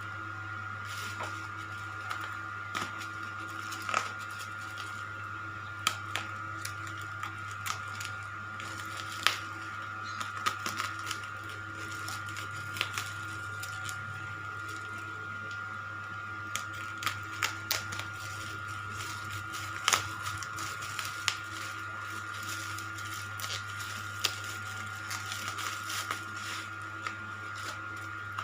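Irregular sharp clicks and taps of a DVD package being handled and opened, over a steady electrical hum with a thin high whine.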